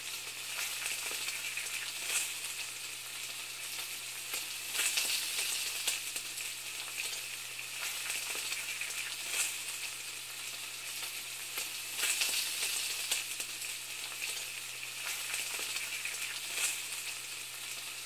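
Food frying in a hot pan: a steady crackling hiss with irregular louder pops, over a faint low hum.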